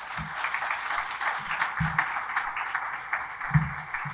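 Audience applauding just after the end of a speech, a dense, even patter of many hands clapping, with three dull low thumps spread through it.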